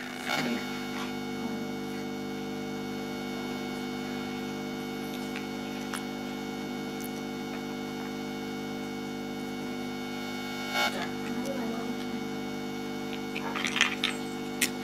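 Steady electrical mains hum, with plastic building blocks clicking and clattering as they are handled and pressed together: briefly just after the start, once about eleven seconds in, and several times near the end.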